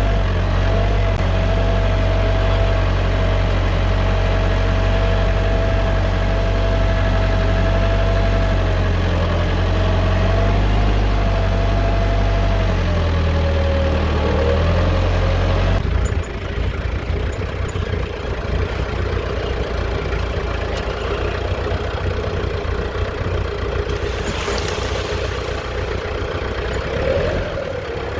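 A vehicle engine runs steadily. About sixteen seconds in, it cuts abruptly to a rougher-sounding engine.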